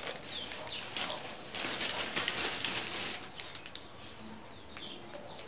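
Plastic packaging rustling and crinkling as it is handled and opened by hand, with small clicks, loudest from about one and a half to three seconds in.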